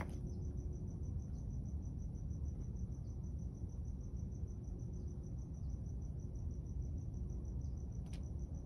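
An insect chirping steadily in even high-pitched pulses, about five a second, over a steady low rumble.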